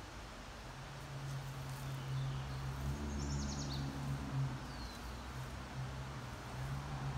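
Outdoor ambience: a low steady hum runs under the scene, and a bird chirps a few times in quick succession about three to four seconds in.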